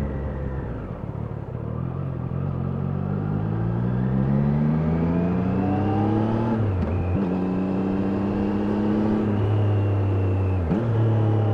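Triumph Daytona 660's inline-three engine under way: the revs drop briefly, then climb steadily under acceleration, with a quick upshift about halfway through and another near the end.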